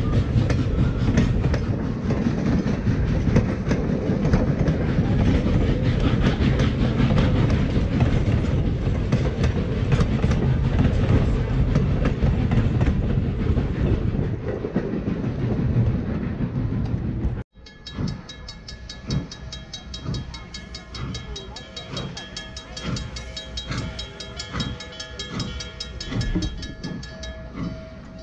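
Passenger coaches of a steam-hauled train rolling past close by: a loud, steady rumble with the wheels clicking over the rail joints. About two-thirds of the way through it cuts off abruptly, and a grade-crossing bell rings at a steady beat.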